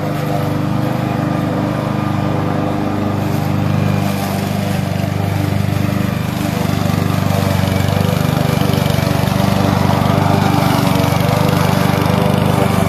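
Honda walk-behind lawn mower's air-cooled four-stroke engine running steadily while it is pushed across the lawn cutting grass.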